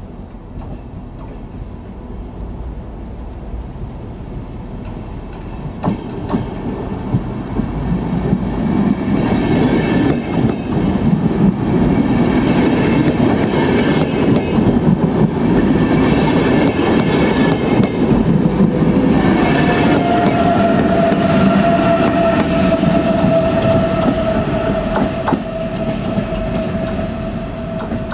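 VR double-deck InterCity push-pull train, driving trailer leading and Sr2 electric locomotive pushing at the rear, running past along the platform: the rumble and clatter of wheels and coaches builds up over the first third, and a steady high whine sets in about two-thirds of the way through as the rear of the train comes by.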